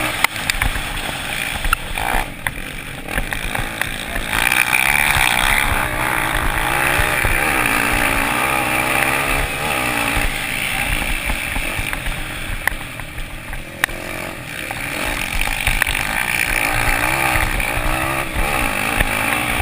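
Off-road motorcycle engine running hard, its revs rising and falling again and again as the rider works the throttle through the track.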